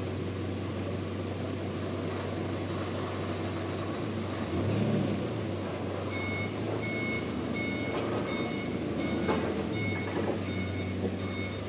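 Steady mechanical drone with a vehicle's reversing alarm. The alarm starts about six seconds in and beeps about twice a second.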